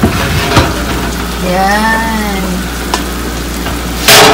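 Hot blackberry cobbler sizzling in its glass baking dish in the open oven, a steady hiss with a few light clicks. A loud rough scrape near the end.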